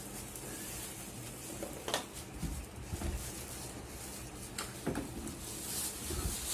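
A few light knocks and clicks from the speaker and its packaging being handled, over a low steady room background.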